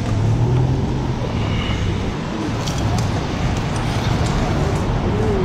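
City street ambience: a steady low rumble of traffic, with faint voices of people nearby.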